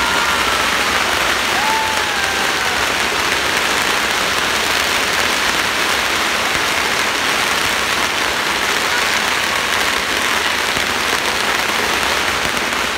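Strings of firecrackers going off in a dense, unbroken rapid crackle that holds steady throughout.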